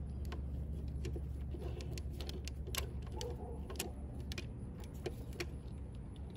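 Socket ratchet clicking in short irregular runs as the final-drive drain bolt is turned back into the scooter's gear case, over a steady low background hum.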